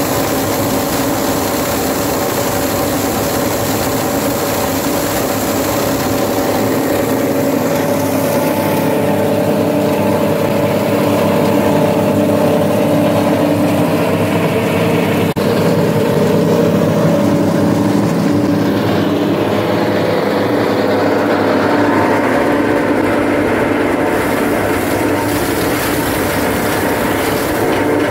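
Plastic shredder running steadily and chopping plastic into small flakes: a continuous machine drone with several steady tones over a noisy rush.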